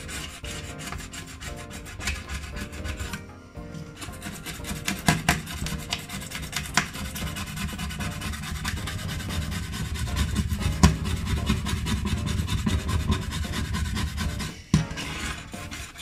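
Hob scraper rasping across a ceramic glass hob in quick repeated strokes, lifting off leftover baked-on residue, with a short pause about three seconds in.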